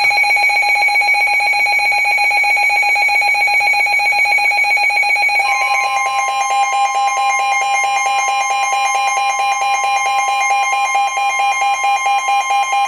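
Weather alert radios sounding a warning alarm: a loud pulsing electronic alarm tone, joined about five and a half seconds in by a steady high alert tone, the weather radio's warning alarm tone that comes before a warning message.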